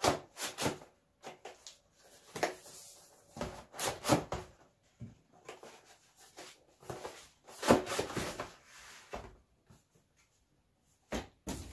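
Cardboard packaging being handled: a box's inner tray scraping and rubbing as it slides out of its cardboard sleeve, in irregular bursts with a few light knocks as the tray is set down on a table.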